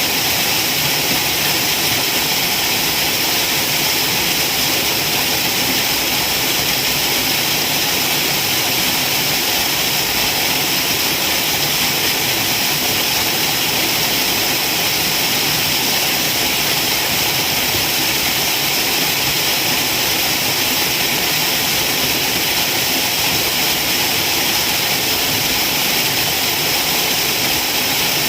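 Waterfall: a steady, unchanging rush of falling water, mostly a high hiss.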